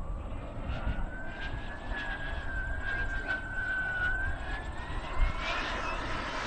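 Model jet turbine engine of an RC jet whistling in flight, a single thin tone that holds roughly steady and then climbs in pitch about five seconds in.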